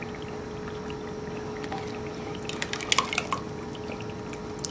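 Thick cooked dal being poured from a pot into meat gravy in an aluminium pressure cooker: a soft, wet pouring and splatting, with a few clicks about three seconds in and a faint steady hum underneath.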